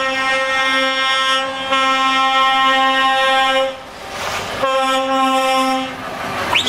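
Truck air horn giving a long, steady blast that cuts off a little past halfway, then a second, shorter blast after a gap of about a second, as trucks in a parade convoy pass.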